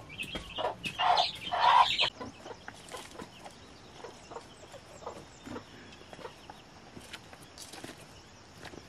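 Chickens clucking loudly for the first two seconds or so, then only faint scattered clicks.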